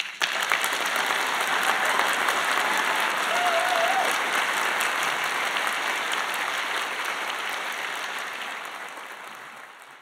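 Audience applauding, starting suddenly and fading out over the last few seconds.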